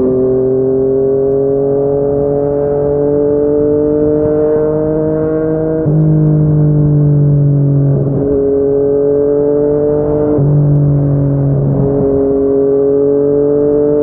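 Yamaha MT-09's three-cylinder engine through a Yoshimura R55 slip-on exhaust, running steadily under light throttle. Its pitch climbs slowly and drops back about six seconds in, then rises again after further dips near eight and twelve seconds.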